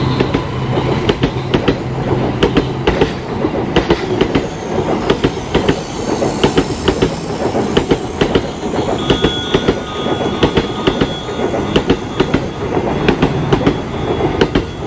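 Battery-powered toy trains running on plastic track: a dense, irregular clatter of clicks as their wheels run over the rail joints, over a steady mechanical hum.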